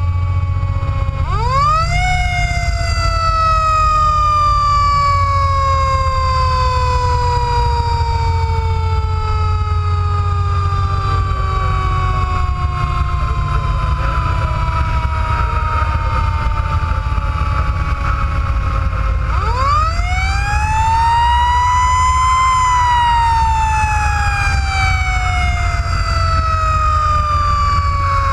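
Fire engine siren winding up twice, about a second in and again about two-thirds of the way through. Each time it rises quickly to a high wail and then slowly falls in pitch over many seconds. Under it the truck's engine and road noise drone steadily.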